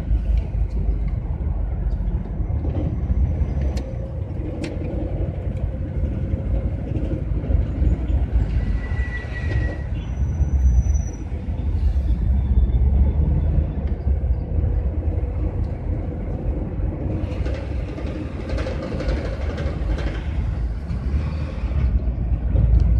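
Inside the cab of a GAZelle van driving through city traffic: a steady low engine and road rumble with a faint hum, and a brighter hiss rising for a few seconds near the end.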